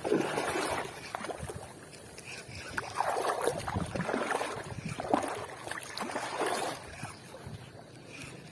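Shallow water washing and sloshing at the shoreline, swelling and falling back about three times.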